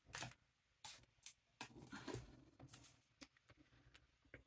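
Faint rustling and light taps of paper, stickers and tape being handled on a desk, several short scattered sounds.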